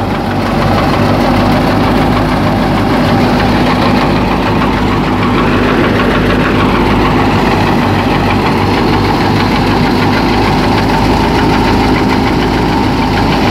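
Wheat thresher running steadily under PTO drive from a New Holland Fiat 480 tractor's diesel engine held at about 1700 rpm: a loud, even machine drone with the engine's steady hum.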